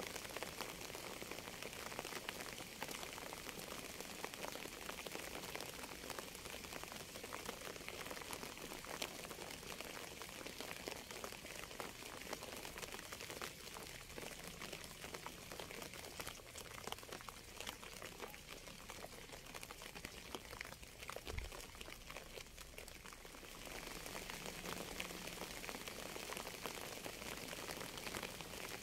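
Steady rain falling: an even hiss of drops with dense fine ticks. A single soft, low thump about three quarters of the way through.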